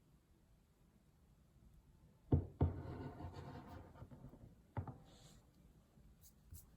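Objects handled on a hard surface: two knocks in quick succession about two seconds in, then a stretch of scraping and rustling, and another knock near five seconds.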